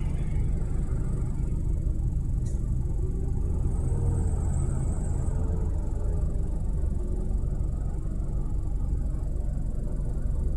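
Steady low rumble of heavy road traffic, trucks and cars driving past on a multi-lane road, with engine tones rising and falling faintly about halfway through.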